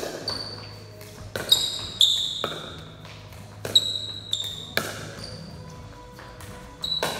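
Pickleball rally: about ten sharp pops of paddles striking a plastic pickleball, irregularly spaced, each with a brief high ring. The pops echo around a large, hard-walled hall.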